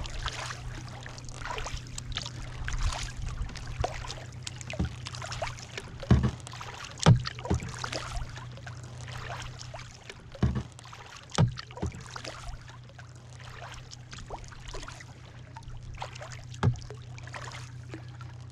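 Canoe under way on choppy lake water: steady splashing and dripping from paddling and water lapping along the hull. About five sharp hollow knocks against the hull stand out as the loudest sounds, the biggest around six to seven and ten to eleven seconds in.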